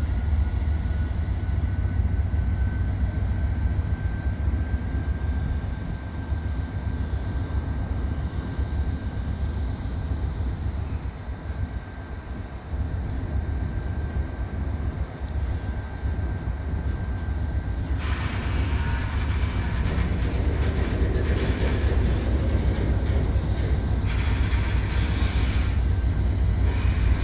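Union Pacific manifest freight train running, a steady low rumble with a thin steady whine over it. About eighteen seconds in, a louder, brighter rattling noise comes in, and it grows again near the end.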